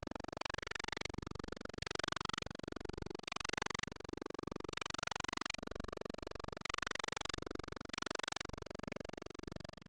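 Quiet background music led by a plucked, guitar-like instrument.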